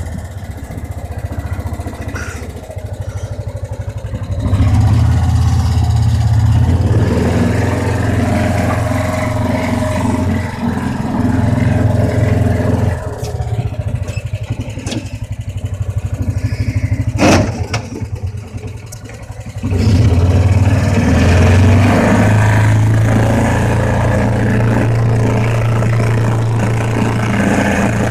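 John Deere Gator 4x2 utility vehicle's engine running while driving, heard inside its cab, which is a little loud. The engine note picks up about four seconds in, eases off around the middle with one short sharp click, and picks up again for the last third.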